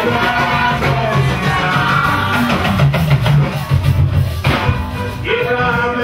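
Church praise music: voices singing over a band with guitar and a sustained bass line.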